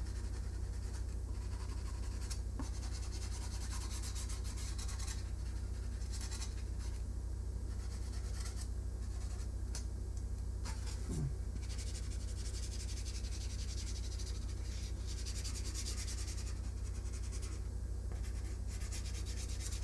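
Water-based felt-tip marker rubbing back and forth over a polystyrene foam tray, coloring in a large area in runs of quick strokes with short pauses, over a steady low hum.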